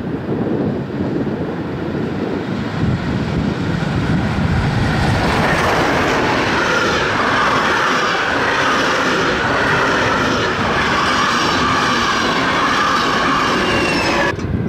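Passenger train behind a steam locomotive passing close at speed. A rumbling approach builds from about four seconds in into the loud, steady rush and rattle of the coaches' wheels on the rails, with thin high whining tones over it. The sound cuts off suddenly near the end.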